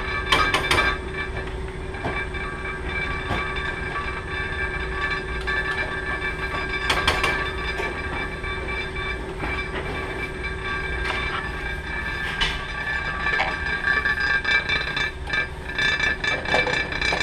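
A few clinks of a metal slotted spoon against a steel pot as eggs are lowered into boiling water, over a steady hum and rushing noise with several held tones.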